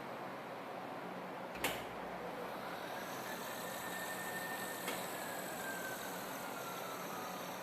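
Hardinge HLV-H tool room lathe: a sharp click, then a faint spindle whine that rises, holds and slowly falls away, with a second lighter click in the middle, over a steady hiss.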